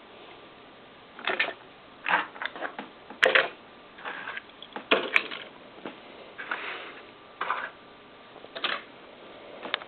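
Die-cast toy cars being handled and set down: irregular clicks, clacks and short rustles.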